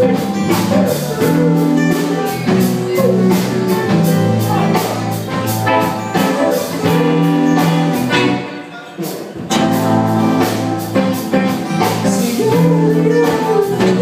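Live band playing a song: strummed acoustic guitars, electric guitars, bass and drums, with a voice singing. The beat and low end drop out briefly about two-thirds of the way through, then the band comes back in.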